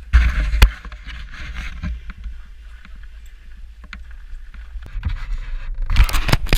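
Wooden sled runners hissing and scraping over packed snow while being towed, with wind buffeting the helmet camera's microphone. There is a loud bump just after the start and louder rumbling jolts near the end.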